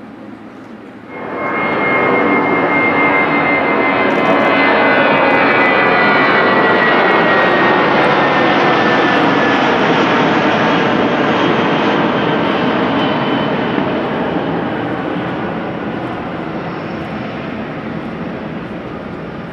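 Boeing 777-300ER's GE90-115B turbofan engines whining and rushing as the airliner taxis by. The sound comes in abruptly about a second in, with a high whine that slides slowly lower, and it fades gradually over the last several seconds.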